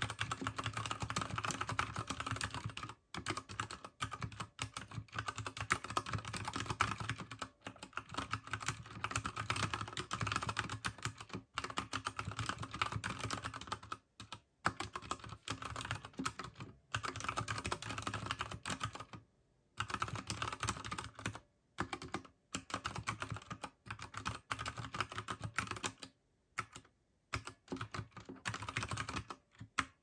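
Wombat Ginkgo Professional mechanical keyboard being typed on steadily, a dense run of key clicks with brief pauses now and then, stopping at the very end.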